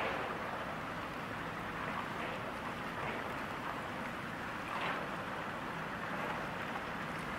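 Steady rushing of water and broken ice along the hull of the Great Lakes freighter Paul R. Tregurtha as it passes close by, over a low rumble.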